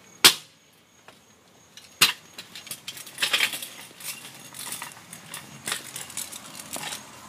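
Metal kick scooter landing hard on concrete after a drop off a low brick ledge: one sharp clatter, the loudest sound, a quarter second in. A second hard knock comes about two seconds in, then irregular rattling and scraping as the scooter's small wheels roll over the concrete driveway.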